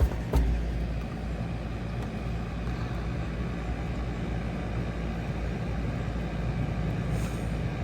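Steady hum and rumble of a running 5-ton Concorde heat pump outdoor unit, its compressor and condenser fan going, with a single brief knock just after the start.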